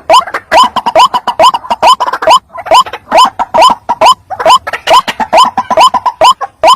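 White-breasted waterhen (ruak-ruak) calling: a fast, loud run of short rising notes repeated about four to five times a second, played as a lure call to draw other waterhens in.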